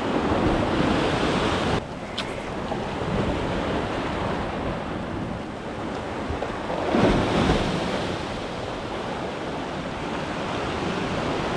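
Sea swell surging and washing against a rock ledge below, with wind buffeting the microphone; a louder surge comes about seven seconds in.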